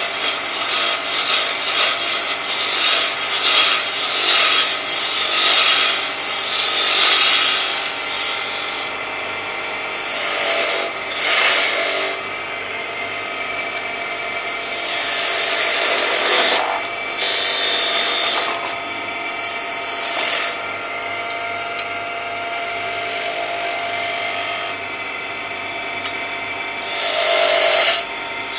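Wood lathe spinning a sapele blank while a turning gouge cuts it, a rasping, shaving scrape. The cutting runs steadily for about the first nine seconds, then comes in shorter bursts with pauses, over the lathe's steady running hum.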